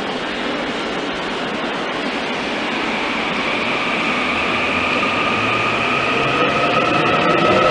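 Korail 361000-series electric train pulling away from the platform: a steady rumble of the cars rolling, with a traction-motor whine that sets in about three seconds in and rises slowly in pitch and loudness as the train accelerates.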